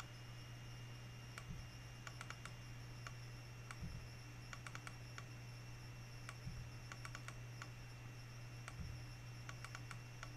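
Faint computer keyboard keystrokes and mouse clicks, scattered and in short clusters, over a steady low hum.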